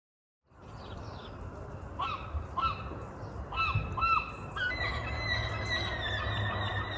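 Birds calling: a series of short, rising-and-falling calls over a steady low hum, joined by longer held calls in the second half.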